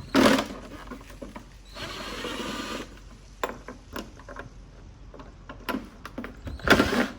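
Screws being worked loose on a car taillight housing: clicks and knocks of a tool against the plastic, a rasping stretch about two seconds in, and louder clatters at the start and near the end.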